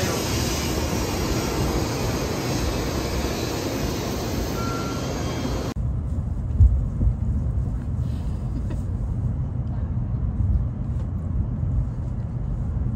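A Shinkansen bullet train running alongside a station platform, a steady loud rush of wind and wheel noise. About six seconds in it changes abruptly to the low rumble of the moving train heard from inside the passenger cabin, with a few light knocks.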